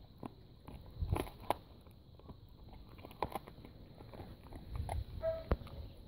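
Dog chewing on a raw goat's neck: irregular crunches and sharp cracks of teeth on bone and meat, the loudest about a second in and again near the end.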